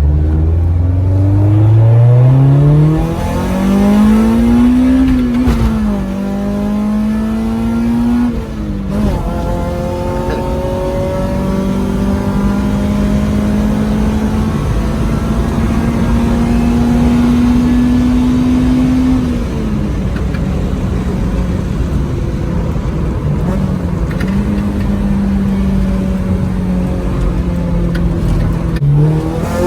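Honda B16A four-cylinder engine in a Civic under hard acceleration, its pitch climbing steeply and dropping at each upshift, twice in the first nine seconds. It then holds high revs at a fairly steady pitch, with a few brief dips, and climbs again near the end.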